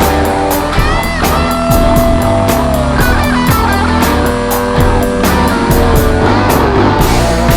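Electric guitar through BOSS GT-1000 amp modelling, played over a rock backing of drums and bass, with several bent notes about a second in. The drum hits come at an even beat.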